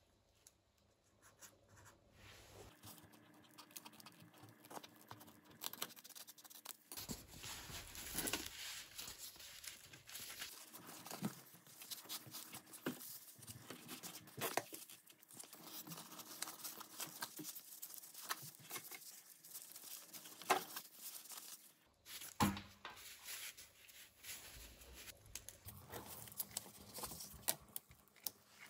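Rustling, crinkling and light scraping of a fabric door draught excluder being handled, with irregular tearing sounds as its white backing strip is peeled away.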